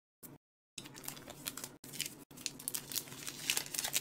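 Packaging being ripped open and crinkled by hand: dense, irregular crackling and tearing. It starts about three quarters of a second in, after a brief cut to dead silence.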